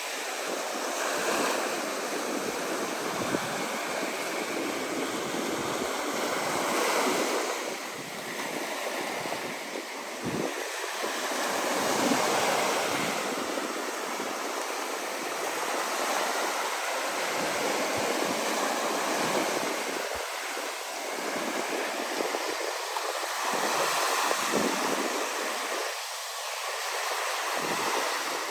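Ocean waves washing in and breaking, a continuous rush of surf that swells and eases every few seconds, with some wind on the microphone.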